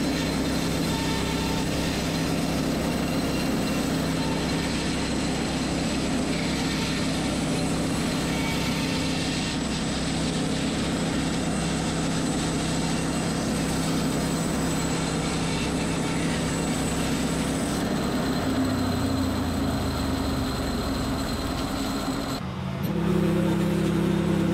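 Norwood LumberPro portable band sawmill running steadily, its engine under load as the band blade cuts across a bundle of upright logs to slice off wood cookies. The engine note drops lower about three-quarters of the way through, and near the end the sound changes suddenly to a cleaner, steadier engine hum.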